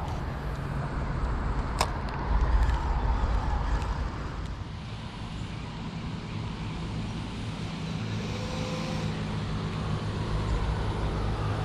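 Road traffic passing: a steady low rumble of car engines and tyres that swells and fades, with one sharp click about two seconds in.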